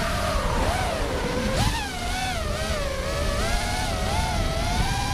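Blade Vortex 250 Pro FPV quadcopter's brushless motors and propellers whining, the pitch wavering up and down as the throttle changes.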